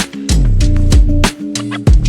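Background music with a steady beat, bass line and percussion.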